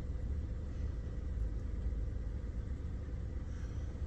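Car engine idling, heard from inside the cabin as a steady low hum.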